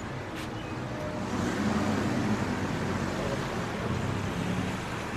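City street traffic with a motor vehicle's engine running close by, loudest about one and a half to two and a half seconds in.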